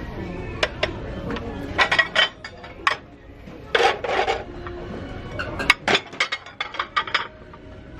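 Plates and dishes being picked up and handled on a shelf, knocking and clinking together in scattered clusters of sharp clinks, with a brief clatter about four seconds in.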